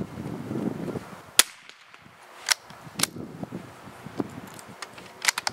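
A single shot from a Norinco NS522 bolt-action .22 rifle firing Aguila Sniper Subsonic 60-grain ammunition: one short, sharp crack about a second and a half in, with no supersonic bullet crack. Several smaller metallic clicks follow as the bolt is worked, the last ones in a quick cluster near the end.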